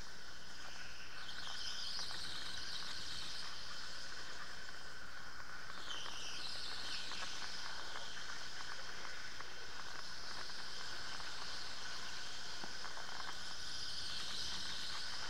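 Electric go-kart running at speed, recorded onboard: a steady high motor whine over tyre and rolling noise. The whine bends up and down in pitch a few times, and a light rattle of ticks runs underneath.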